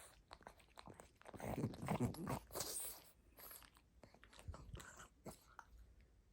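A pug chewing and smacking its mouth: a quiet run of small clicks, loudest about one and a half to three seconds in.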